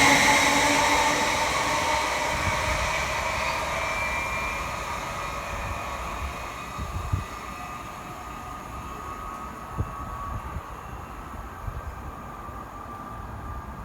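A train passing along the line and moving away, its rushing noise fading steadily, with faint whining tones dying out with it.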